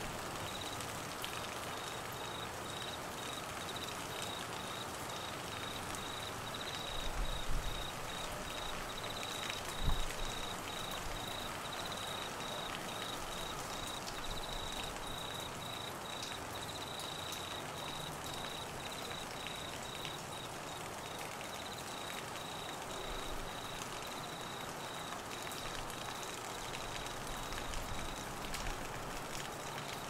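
Steady rain falling on trees and grass, with a high, fast-pulsing chirp that starts about half a second in and keeps going. Two brief low thuds stand out, about seven and ten seconds in.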